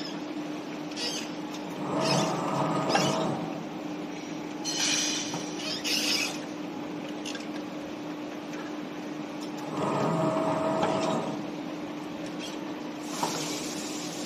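A semi-automatic can seamer running with a steady hum, sealing easy-open lids onto metal bowls. It goes through two seaming cycles about eight seconds apart, each a rolling metallic whirr lasting about a second. Between them come a brief hissy clatter and a click as bowls are handled.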